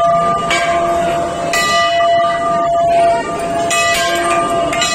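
Large hanging metal temple bells struck by hand, about four strikes at uneven intervals, each leaving a steady ringing that carries on into the next.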